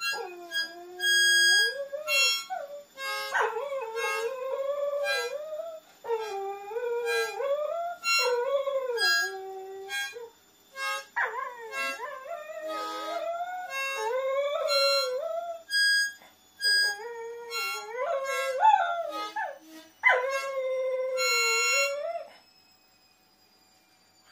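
Border collie howling in long, wavering calls that slide up and down in pitch, with short breaks between them, until they stop near the end.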